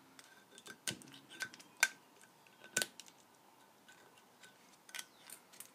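Scattered light clicks and taps of hands and a tool on a Kohler engine flywheel while its magnets are cleaned of JB Weld. Several of the sharper taps carry a brief metallic ring.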